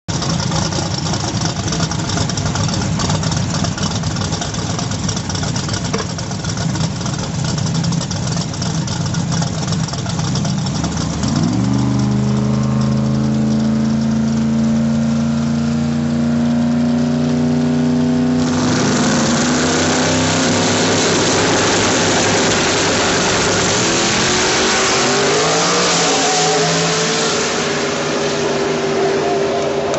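Outlaw 10.5 drag racing car's engine running at the start line. About 11 seconds in the revs climb and hold steady. About 18 seconds in a loud full-throttle roar takes over as the car launches down the strip, its pitch dropping and climbing through the run.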